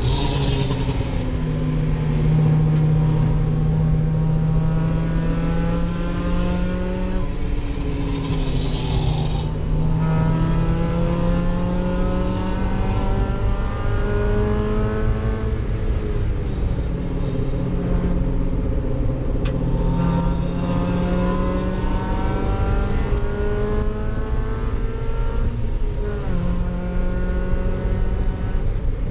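Mazda Miata race car's four-cylinder engine heard from inside the cabin, running hard at race speed. Its pitch climbs for several seconds, then drops, again and again: accelerating and shifting or braking through the corners of a lap.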